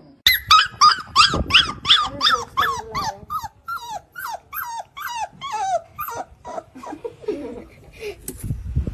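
Puppy yelping in a rapid series of high cries, each falling in pitch, about three a second, growing fainter after about six seconds.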